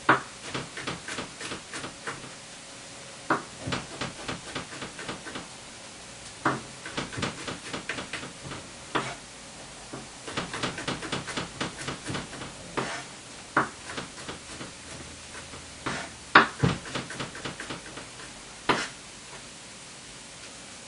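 Kitchen prep at a counter: irregular clicks and knocks of utensils on the work surface, some in quick runs, with a few louder knocks, the loudest about 16 seconds in. A faint steady hum sits underneath.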